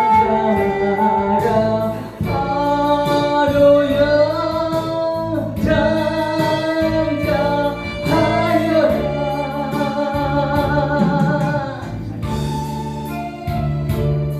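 Gospel song: a voice holds long, wavering notes over an instrumental backing with a steady bass. The voice fades out near the end, leaving the accompaniment.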